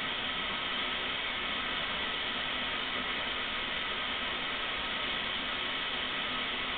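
Water falling steadily from the upper bowl of a tiered garden fountain and splashing into its basin.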